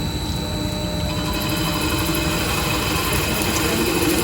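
CNC drilling special-purpose machine running with a steady mechanical hum. About a second in, the sound grows brighter and a mid-pitched tone strengthens.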